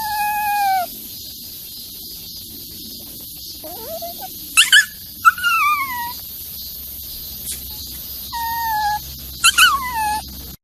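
A puppy whining: about five high whimpers, each under a second long and most falling in pitch, with short clicks at the start of some.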